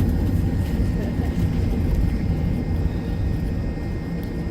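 Jet airliner cabin noise during taxi after landing: a steady low rumble from the engines with a thin, steady high tone above it.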